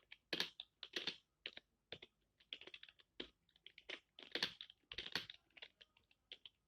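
Computer keyboard being typed on: sharp key clicks in uneven runs, several a second, with short pauses between runs.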